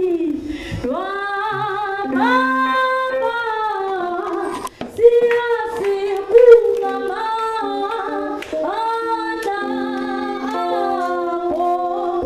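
Voices singing a worship song, with held and sliding notes and keyboard accompaniment.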